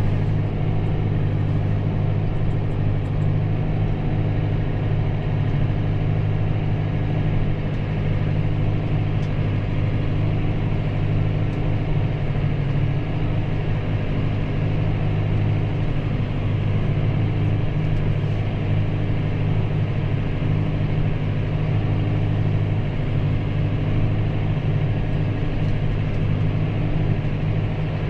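Massey Ferguson 5S.115 tractor's diesel engine running steadily under load while ploughing, a constant low drone.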